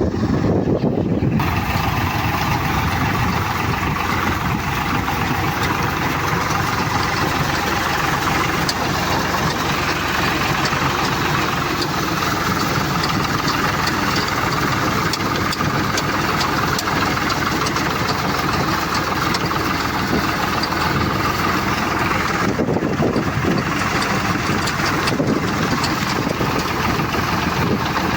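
An engine running steadily at a constant pace, with a dense mechanical clatter; the sound becomes fuller about a second in.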